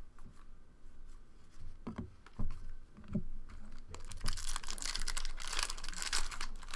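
A few soft knocks, then a trading-card pack wrapper being torn open and crinkled, a dense crackle through the last three seconds or so.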